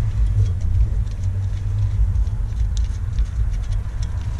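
A steady low rumble, with faint light ticks and taps as a bolt is started by hand into the thermostat housing.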